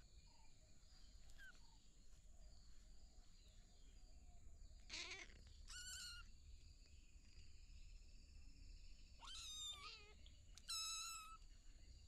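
Young kittens meowing: four short, high-pitched meows, a pair near the middle and a louder pair near the end.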